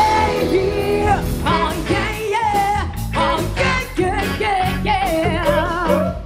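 Live rock and soul band playing: a female lead vocal sings with wide, wavering vibrato over electric guitar, bass and drums.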